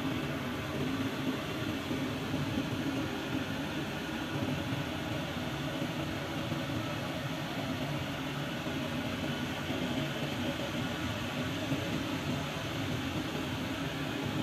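A steady, unbroken mechanical whir, like a fan running, with no changes or distinct events.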